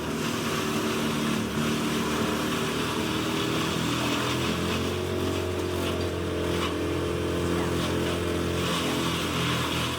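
Heavy diesel engine of a whole-tree wood chipper running steadily under load, a constant deep hum with a layer of noise above it.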